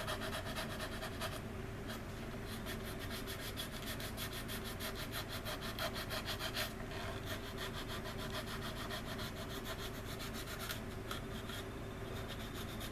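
Hand sanding of a resin model-kit part: quick, even back-and-forth strokes of abrasive on resin, cleaning off flash, over a steady low hum.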